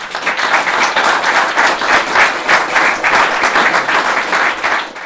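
Audience applauding, starting suddenly and dying down near the end.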